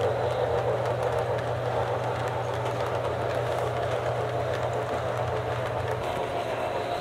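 HO-scale model passenger train running on layout track: a steady rolling noise from the cars' wheels on the rails, with faint scattered clicks over a steady low hum.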